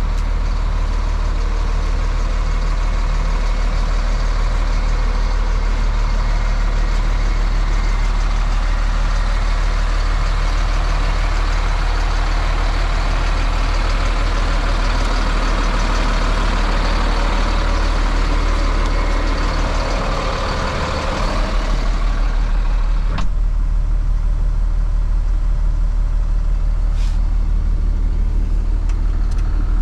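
1995 GMC Topkick medium-duty truck's engine idling steadily with a constant low hum. About two-thirds through the sound turns duller, with a single click shortly after.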